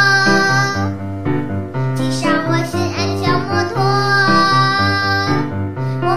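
Background music: a pop song with a high, child-like singing voice holding long notes over instrumental backing.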